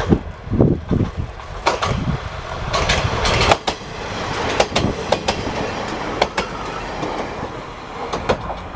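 Diesel railcar train running past, its wheels clacking over rail joints in scattered sharp clicks over a steady rumble.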